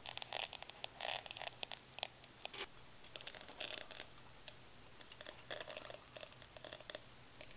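Molten aluminum crackling faintly and irregularly as it is poured from a crucible, first into a sand mold and then into an ingot mold. The crackle is the sign of what the caster takes for Epsom salt (magnesium sulfate) crystals from degassing still left in the melt.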